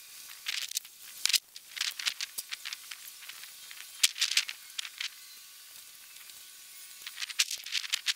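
Scattered soft crackles and rustles of hands working wire and solder joints under a pickup's running board, with a quieter stretch just past the middle.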